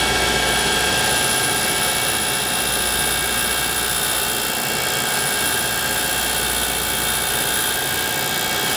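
Cutter grinder's abrasive wheel spinning and grinding a slot into a semi-fired alumina bisque ceramic part: a steady whine of several held tones over an even hiss.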